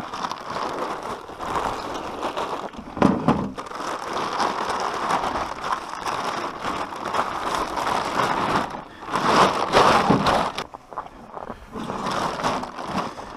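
Plastic tarp crinkling and rustling as it is unfolded and stuffed into a plastic pulk sled, with louder rustles about three seconds in and again around nine to ten seconds in.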